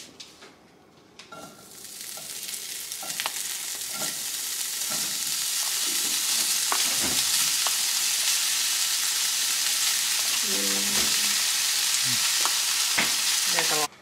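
Chopped cooked chicken spooned into a hot frying pan, sizzling. The sizzle builds over the first few seconds to a steady hiss, with sharp clicks of a metal spoon against the pan and tray, and stops abruptly near the end.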